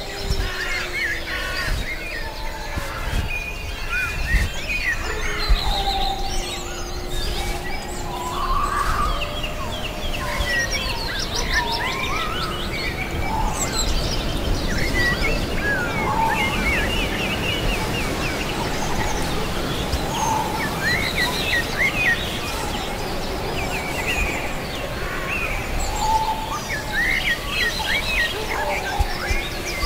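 Many small birds chirping and trilling over a steady forest background, with long, low, drawn-out wolf howls, several in the first ten seconds and one more near the end.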